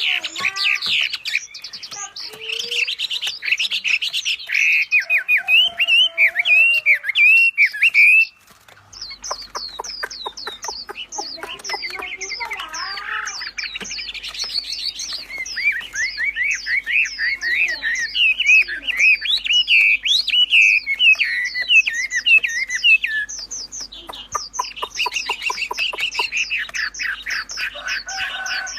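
Wambi bird singing a fast, continuous chattering song of rapid repeated chirps, whistles and squawky notes, with a brief break about eight seconds in.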